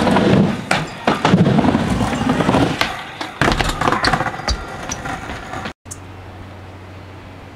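Skateboard wheels rolling on a plywood mini ramp, with repeated sharp clacks and knocks of the board hitting the ramp. A little before the end the sound cuts off abruptly and gives way to a steady, quieter hiss.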